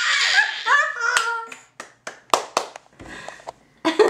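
A baby laughing in a high squeal for about a second and a half, then clapping her hands in a quick run of claps.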